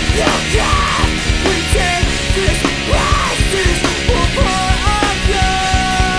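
Recorded punk rock song playing: a full band with a steady drum beat and a sliding melody line over it.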